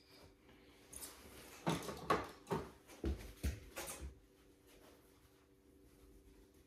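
A paintbrush scrubbing and dabbing paint on a palette, about six quick strokes over two seconds, then quiet, over a faint steady hum.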